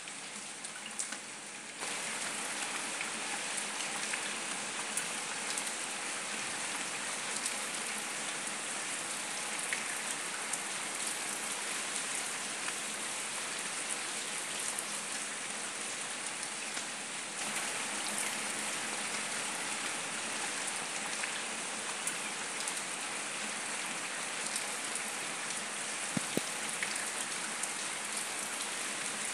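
Steady rain falling on wet paving stones and puddles: a dense hiss dotted with the ticks of single drops, stepping up a little louder about two seconds in.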